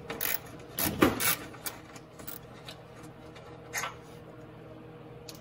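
A 3/8-inch ratcheting thumb drive clicking irregularly as it turns out an 8 mm bolt on a fog light housing, over a faint steady hum.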